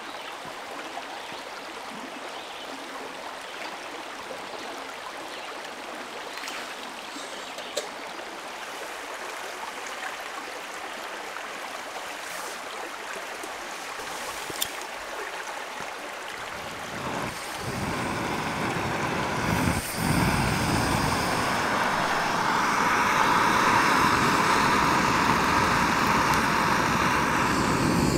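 Steady rush of running water, with a couple of faint ticks. From about 17 seconds in a louder, deeper rush takes over, breaks briefly near 20 seconds, then holds loud and steady.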